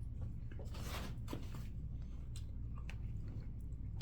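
Eating: chewing with scattered small clicks and crackles, most of them in the first two seconds, over a steady low hum.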